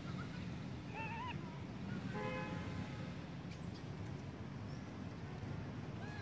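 Outdoor background with a steady low rumble, a short wavering animal call about a second in, and a brief horn-like toot a little after two seconds; another short call sounds near the end.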